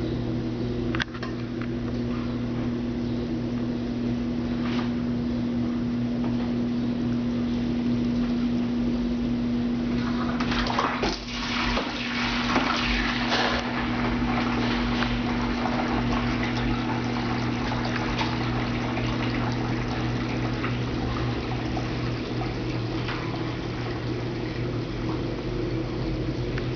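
Brastemp Ative BWL11AR washing machine draining at the end of the wash: its drain pump hums steadily while the wash water rushes out. Around eleven to thirteen seconds in there is a spell of louder water noise.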